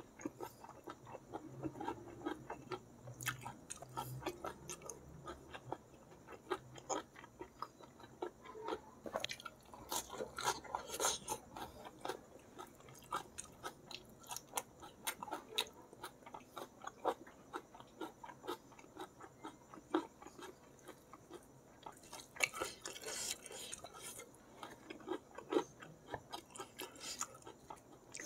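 Close-miked chewing of spicy balado squid and rice eaten by hand: a steady run of small wet clicks and lip smacks, with louder clusters about ten seconds in and again past twenty seconds.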